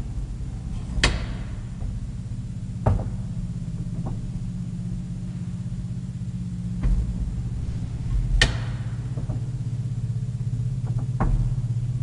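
Vintage Flohr traction elevator running with a steady low hum. Several sharp clacks cut through it, the loudest about a second in and again about eight seconds in.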